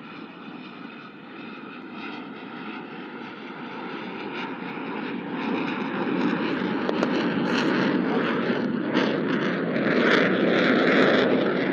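JF-17 Thunder fighter's single turbofan jet engine, a rushing noise with a steady whine that grows steadily louder.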